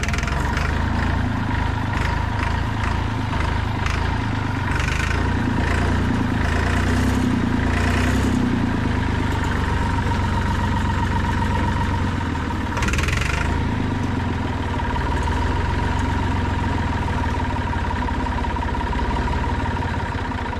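Massey Ferguson 200 Turf tractor's diesel engine being cranked over by the starter for a long stretch without catching, a low uneven chugging under a steady whine. It fails to fire because fuel is not getting through; the crew suspects a dead transfer pump.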